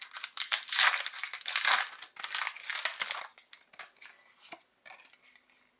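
Foil booster-pack wrapper crinkling densely as it is torn open for about three seconds, then a few lighter rustles and clicks as the cards are pulled out.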